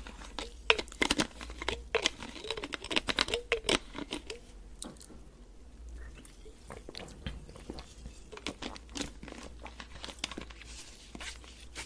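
Close-miked mouth and handling sounds of drinking from a plastic soda bottle. Many sharp clicks and crackles come thickly in the first few seconds and grow sparser after.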